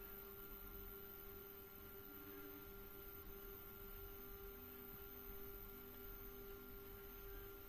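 Faint steady electrical hum on one tone, with a few short, fainter lower tones in the middle.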